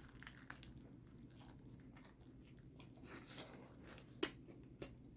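A person chewing and biting food close to the microphone, faint mouth sounds with small wet clicks, and two sharper crunches or smacks about four and five seconds in.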